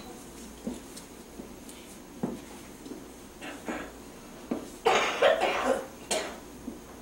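A person coughing several times in quick succession about five seconds in, among scattered light knocks and clicks of people working at tables.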